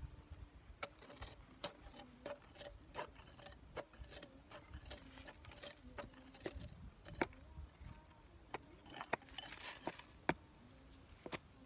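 Irregular sharp clicks and scrapes of a flat wooden stick digging and scraping in gravelly soil, a few strikes a second with short pauses between.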